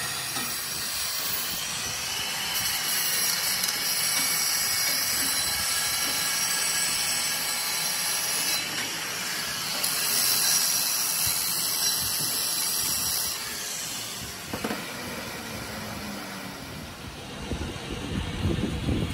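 Handheld angle grinder with an abrasive disc held against a rickshaw wheel rim spinning in a lathe: a steady grinding hiss of disc on metal over the lathe's running. It dies away about two-thirds of the way through.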